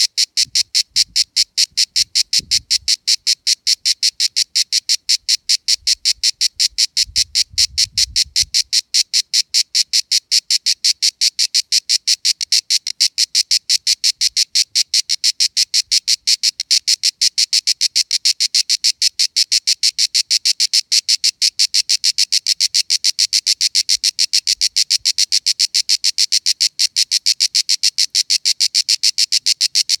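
A cicada singing on a cork oak trunk: a loud, high, buzzing song made of fast, evenly spaced pulses, several a second, going on without a break.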